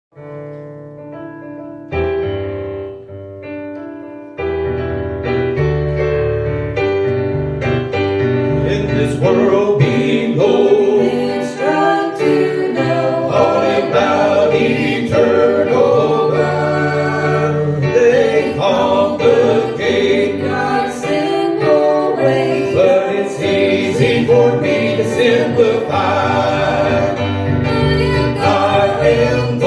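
Gospel vocal group singing in harmony over keyboard and band accompaniment. It opens with a few spaced chords, and the full arrangement comes in about four seconds in.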